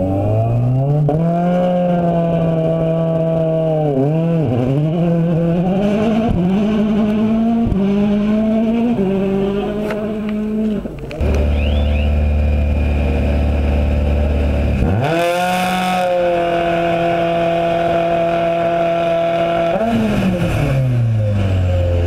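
Citroën DS3 WRC rally car's 1.6-litre turbocharged four-cylinder engine accelerating up a gravel road, its pitch climbing and dropping with quick gear changes. After a cut about halfway, a steady engine drone rises sharply a few seconds later, holds, then winds down near the end.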